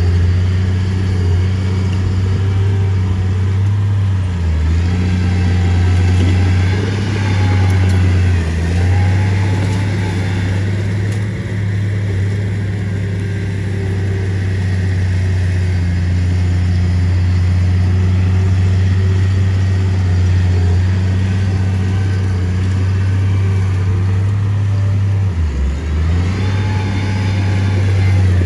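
Heavy diesel engine of construction machinery running steadily with a strong low hum, its note dipping briefly three times.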